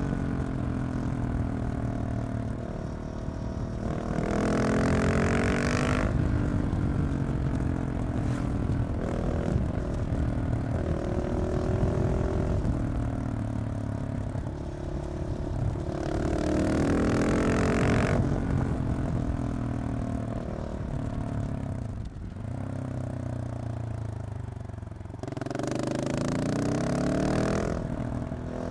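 KTM 690 SMC R single-cylinder engine breathing through a Leovince exhaust with the catalytic converter removed, ridden hard: three loud pulls where the pitch climbs and steps through gear changes, with lower throttle-off stretches between them.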